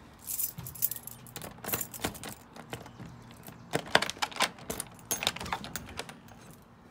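A bunch of keys jangling, with quick clicks and knocks from working the knob lock of a wooden cabin door and opening the door; the loudest knock comes about four seconds in.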